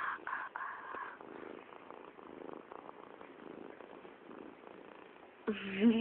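Domestic cat purring close to the microphone. Near the end comes a short, loud call whose pitch rises.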